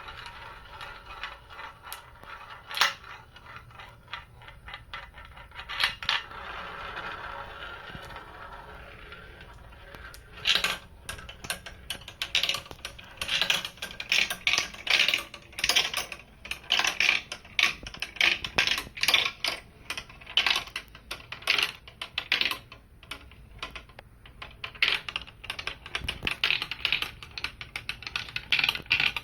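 Glass marbles rolling along marble-run track with scattered clicks. About ten seconds in, this turns into a dense, rapid clatter of many marbles bouncing through the course and knocking against it and each other.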